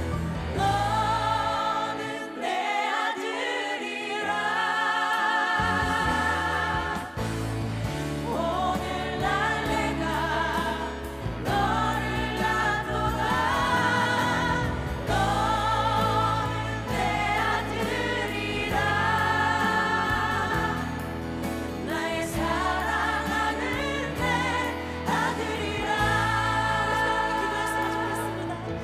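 Korean contemporary worship song: women's voices sing a slow melody with vibrato over keyboard accompaniment and sustained low bass notes.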